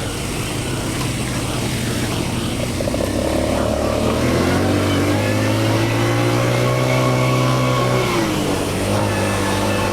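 ATV engine running under throttle: it speeds up about three seconds in, holds a steady higher pitch, then eases back about eight seconds in.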